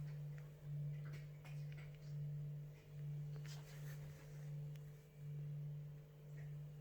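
Cat purring: a low hum that swells and fades in a steady rhythm, about once a second, with a few faint scratchy ticks.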